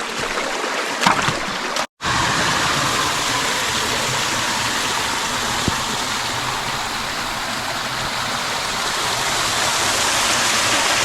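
Mountain brook water rushing steadily over rocks. A few small knocks are heard, and the sound cuts out very briefly about two seconds in.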